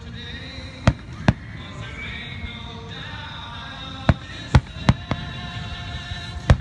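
Aerial firework shells bursting overhead: about six sharp bangs, two near the start, three in quick succession around the middle and one near the end, over background music.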